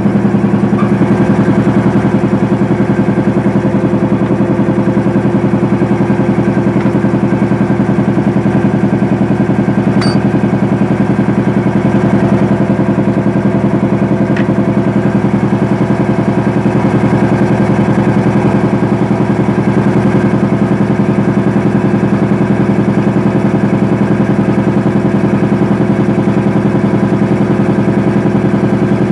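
Workshop air compressor running steadily with a loud, even mechanical hum, plus a sharp click about ten seconds in and a fainter one a few seconds later.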